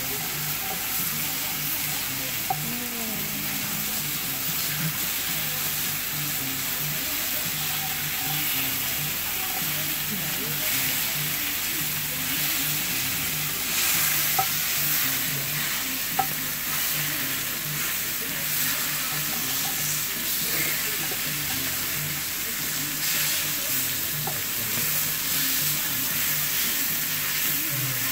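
Steak sizzling on a hot iron sizzle plate, a steady hiss, with a couple of sharp clicks of the knife and tongs against the plate as the meat is cut and turned.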